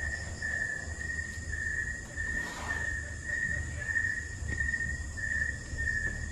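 Night insects trilling in a steady, high-pitched pulsing chorus, with a low steady rumble underneath and a brief soft rustle about two and a half seconds in.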